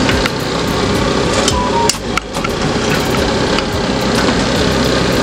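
Puff puff dough balls deep-frying in hot oil in a steel pot: a steady sizzle with frequent crackling pops, dipping briefly about two seconds in.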